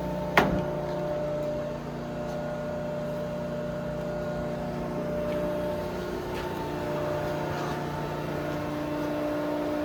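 Integrated electric hydraulic power unit of a KMF 3040L horizontal baler running with a steady hum, while the ram is jogged. A single sharp clunk comes about half a second in, and the pump's tone shifts slightly a few times after that.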